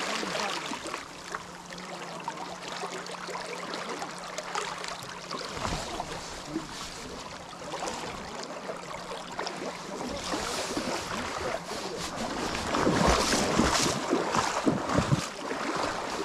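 River current rushing through the shallows, with wind buffeting the microphone; the buffeting grows louder in the last few seconds, with a couple of low thuds.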